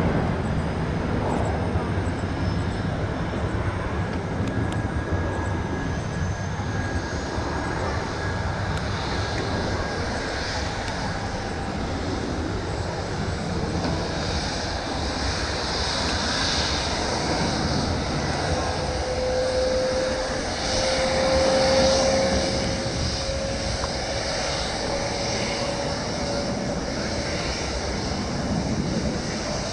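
Steady jet noise from a Boeing 737-800's CFM56-7B engines as the airliner climbs away after takeoff.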